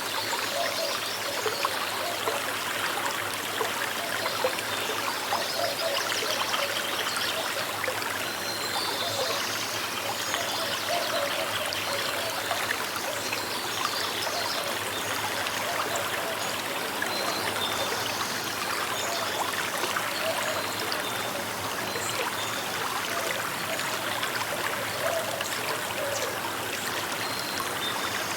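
Small river flowing: a steady rush of water with trickling and gurgling.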